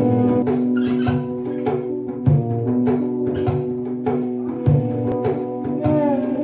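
Background instrumental music with held notes over a recurring drum beat.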